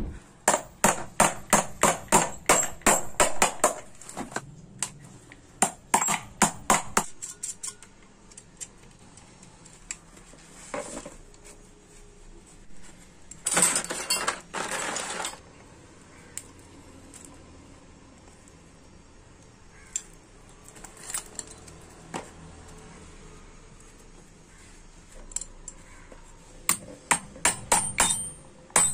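Hammer tapping on a TVS 50 moped's aluminium crankcase half to seat a ball bearing: a quick run of sharp metallic taps, about three or four a second, more taps a few seconds later, and another cluster of taps near the end. A short burst of scraping noise comes about halfway through.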